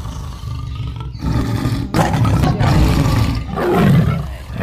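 Big-cat roar sound effect, lion or tiger, loud, swelling up several times in a row.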